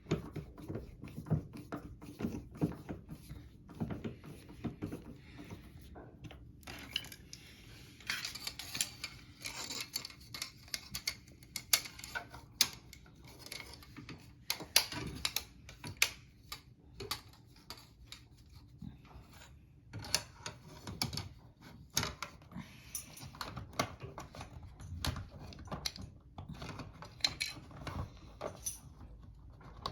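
Irregular clicks, taps and light clatter of small hard parts being handled and worked, coming in uneven clusters.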